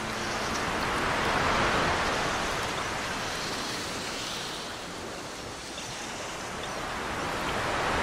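Ocean surf: waves breaking and washing up the shore, a steady rush that swells about two seconds in, eases off and builds again near the end.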